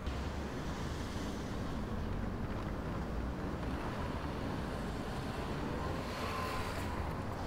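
Steady low vehicle rumble with a light hiss, swelling slightly near the end.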